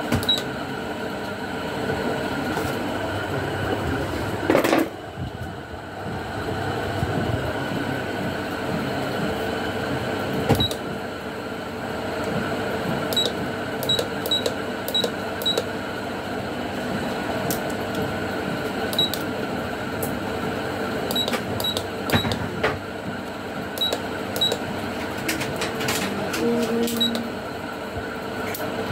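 Keypad of an A&D digital price-computing scale beeping with each key press during calibration: short high beeps, scattered and sometimes several in quick succession, with light key clicks over a steady background hum. A single loud knock comes about five seconds in.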